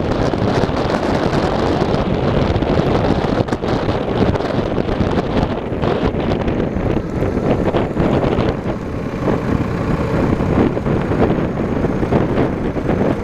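V-twin cruiser motorcycle on the move, its engine running under heavy wind buffeting on the helmet-mounted microphone.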